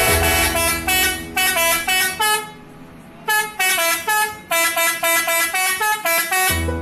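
Telolet horn, a set of air-horn trumpets switched by a controller, playing a quick tune of short stepped notes, with a brief pause about two and a half seconds in.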